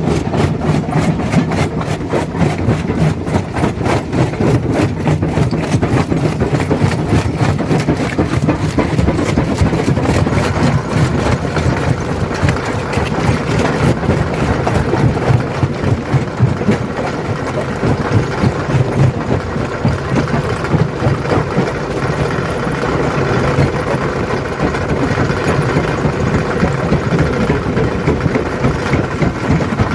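Stone crusher running under load: a steady heavy engine drone with dense cracking and knocking of rock being crushed.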